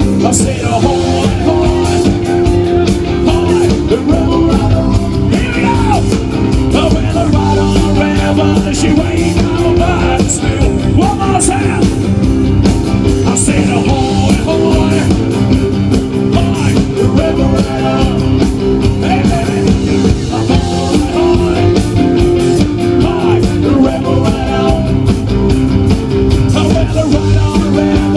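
A rock and roll band playing live through a PA: amplified guitar, bass and drums with a steady beat, loud and continuous.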